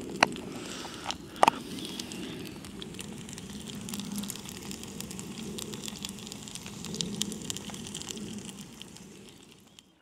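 Food sizzling and crackling in a pan on a camping stove, a steady hiss with fine crackles that fades out near the end. Two sharp knocks come in the first second and a half.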